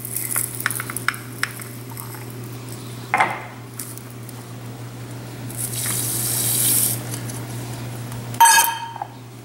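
Dry, granular brine blend poured from a glass jar into a stainless steel measuring cup, a grainy hissing patter in stretches with small clicks, over a steady low hum. Near the end comes a sharp knock with a short ringing tone.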